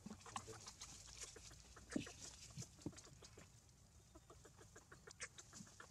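Faint, scattered short animal calls and ticks, with one louder call about two seconds in.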